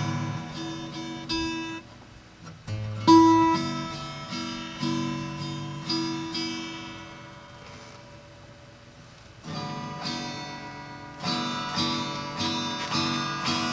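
Acoustic guitar being picked and strummed, its chords ringing out and fading, the loudest stroke about three seconds in. After dying away to near quiet, the playing starts again about nine and a half seconds in with quicker, more regular strums.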